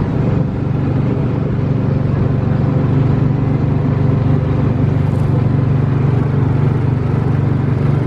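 Engine of an amusement-park ride car running at a steady, even speed as the car drives along the ride's course.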